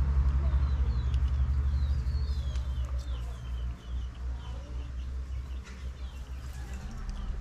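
Birds chirping in many short calls, over a low rumble, like a passing vehicle, that fades out over the first three seconds or so.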